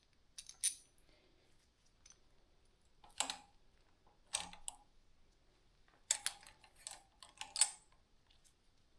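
Small metal bicycle brake parts clicking and clinking as they are handled and fitted: a few separate clicks, then a quick run of clicks about six seconds in.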